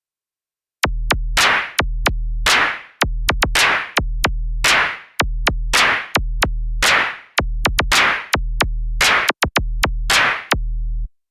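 Synthesizer beat from a drum-machine loop: deep bass notes switching on and off, sharp clicks, and a noisy snare-like hit about once a second that fades quickly. It starts about a second in and cuts off abruptly shortly before the end.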